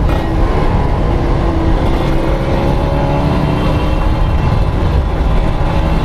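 Kawasaki Ninja RR's 150 cc two-stroke single-cylinder engine, fed by a Mikuni VM28 carburettor, running steadily with its pitch wavering slightly up and down.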